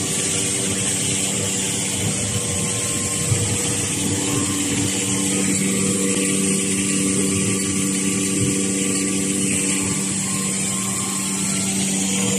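Facial tissue production line machinery (conveyors and packing machines) running: a steady mechanical hum with several constant tones over a high hiss, and a couple of light clicks.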